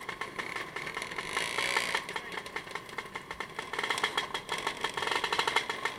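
A motorcycle engine running, with a fast, busy rattling clatter throughout.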